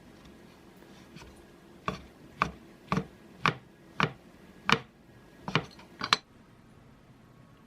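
A run of about nine sharp knocks, roughly two a second, each with a short ring, stopping about six seconds in.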